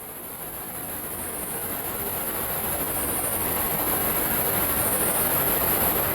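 Cinematic wind swell sound effect: a rushing, rumbling gust of wind noise that builds steadily louder for about six seconds and starts to fall away at the very end.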